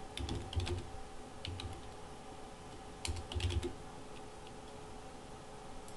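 Computer keyboard keys clicking as a short word is typed, in three quick bursts of keystrokes.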